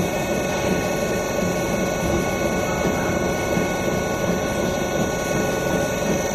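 Packing-peanut extruder running steadily: a constant machine hum with several steady whining tones over it.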